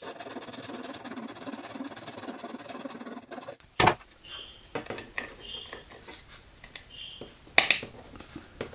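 A round metal file rasping steadily back and forth in the square hole of a 3D-printed plastic plate for about three and a half seconds, enlarging it so a square nut fits snugly. A sharp knock follows, then small clicks and a few short squeaks as the square nut is pressed into the plastic hole.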